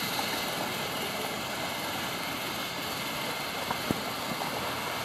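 Steady hiss of water around paddled kayaks on calm sea water, with a few faint ticks and drips from the paddles.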